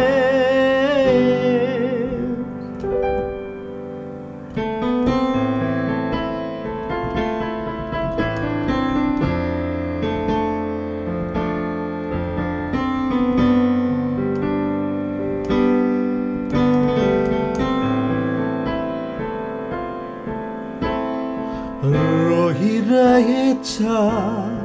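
A Nepali prayer song: the voice holds a note with vibrato at the start, then an instrumental interlude of held chords and melody plays, and the singing comes back in near the end.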